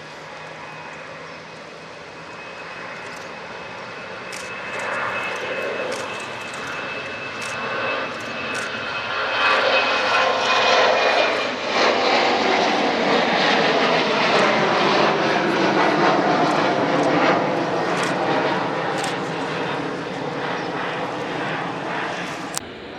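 Boeing 777-300ER's twin GE90 turbofans at high thrust, growing louder to a loud pass and then falling in pitch as the airliner goes by, with a high whine at first. This is the takeoff run.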